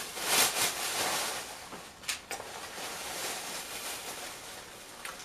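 Wrapping being handled, rustling and crinkling, loudest in the first second, with a sharp crackle about two seconds in.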